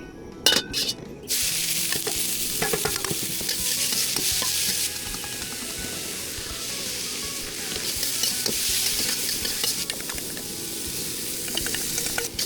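Food stir-frying in a hot pan. A couple of sharp knocks start it, then a steady, loud sizzle runs on from about a second in, easing a little midway and swelling again.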